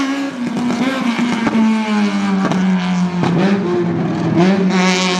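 The Fiat 127 slalom car's engine runs hard, its note falling over the first couple of seconds, dipping twice, then climbing again near the end as the throttle is lifted and reapplied, with a couple of sharp cracks along the way. A brief high hiss comes just before the end.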